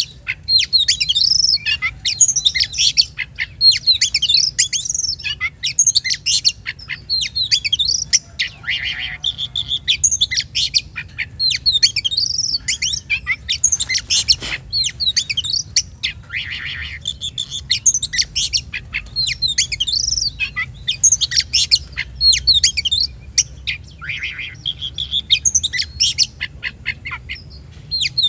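Oriental magpie-robin (kacer) singing without pause: a fast, varied stream of sweeping whistles, trills and harsher chattering notes, broken only by short gaps.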